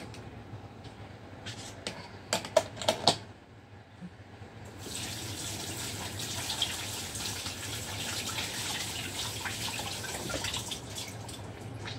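Kitchen tap running into the sink, a steady splashing hiss that starts about five seconds in and stops near the end. Before it come a few sharp knocks, about two to three seconds in.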